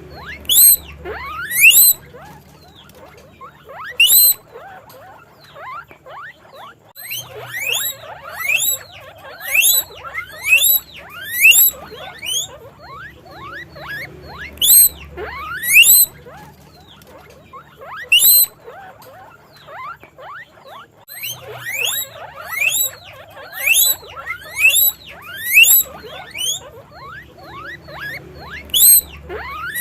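Guinea pig wheeking: loud, high squeaks that each sweep upward in pitch. They come in quick runs of several calls, with short quieter spells between the runs.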